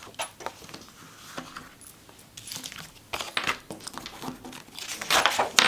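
Sheets of paper planner inserts being handled on a desk: light rustling and small taps, busier about three seconds in and again near the end.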